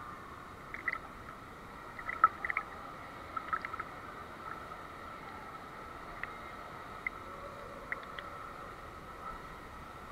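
Pool water sloshing and splashing around a swimmer doing the backstroke, with a cluster of short splashes in the first few seconds, the loudest a little over two seconds in, and a few more later, over a steady faint hum.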